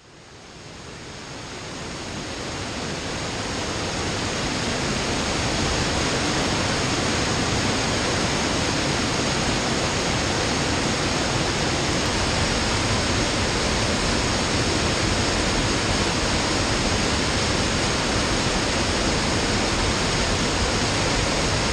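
Rushing creek cascading in whitewater over boulders: a steady, full rush of water that fades in over the first few seconds.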